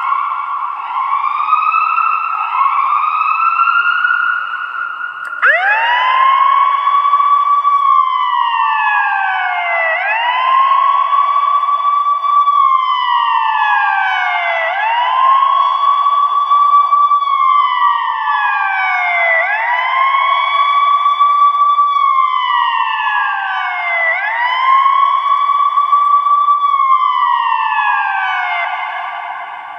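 Ambulance's electronic siren sounding a wail. For the first five seconds it runs faster, overlapping rising sweeps, then switches abruptly to a slower wail that rises quickly, holds and slides back down, about every four and a half seconds.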